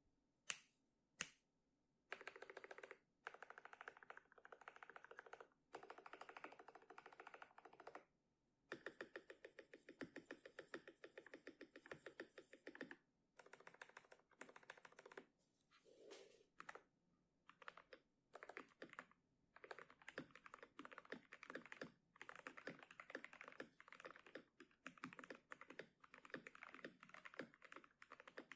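Typing on an Edra EK387 mechanical keyboard with lubed linear frankenswitches (Gateron Pro Yellow stems in Kailh housings) and PBT keycaps: fast runs of keystrokes in bursts of a few seconds with short pauses, after two louder single key presses at the start.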